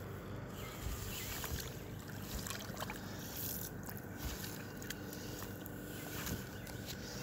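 Creek water flowing and lapping close by, a steady wash with a few light clicks and knocks scattered through it.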